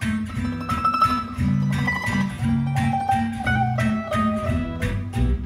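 Gypsy jazz string band playing a musette waltz: Selmer-style acoustic guitar strumming the rhythm over upright bass, with mandolin and violin carrying the melody.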